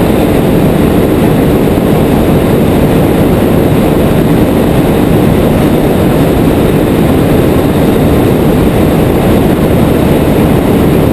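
Steady, loud rush of a small inflatable boat running fast over calm sea: wind on the action camera's microphone over the drone of the boat's motor.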